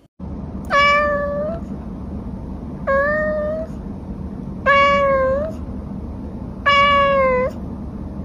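Calico cat meowing four times, each meow a long, even call of most of a second that lifts slightly in pitch at its end, over a steady low background hum.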